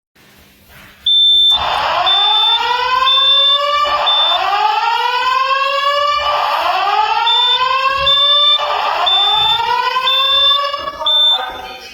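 Simplex 4100ES fire alarm system sounding its whoop evacuation tone: rising sweeps in pitch, one about every two and a half seconds, starting about a second in. A high steady beep repeats about once a second over the sweeps.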